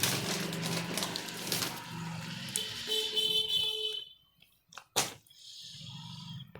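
Road traffic noise with a vehicle horn sounding once, held for about a second and a half near the middle; after it stops comes a single sharp click and a faint low hum.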